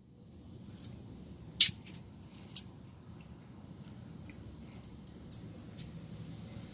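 Small metallic ticks and clinks of lock pins being handled, about a dozen sharp light clicks at irregular intervals, the loudest about a second and a half in.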